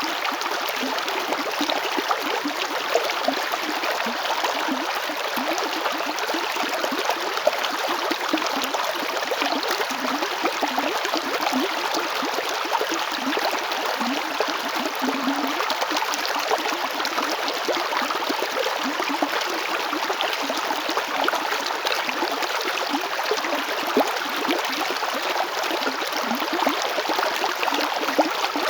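River water flowing steadily over stones, a continuous rushing with small gurgles and splashes throughout.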